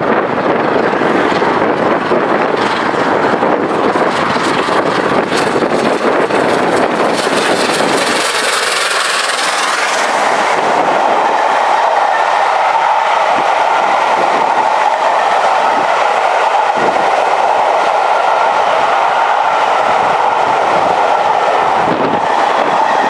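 Peppercorn A1 three-cylinder Pacific steam locomotive 60163 Tornado passing at speed, a loud, heavy roar for the first eight seconds or so. Then its train of coaches runs by with a steady, higher rail-and-wheel hum and occasional clicks of wheels over the track.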